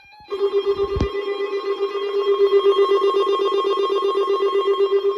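Weather radio receiver's electronic alert alarm: a steady-pitched buzzing tone pulsing rapidly, starting just after the beginning, with a short knock about a second in.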